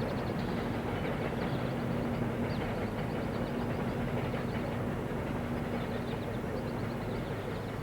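Steady rumble of a running vehicle, with a low hum and a steady tone that fades out near the end.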